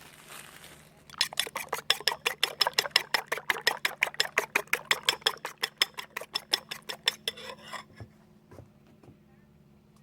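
Rapid, even series of sharp clicking strokes with a slight metallic ring, about seven a second, starting about a second in and stopping near the eight-second mark.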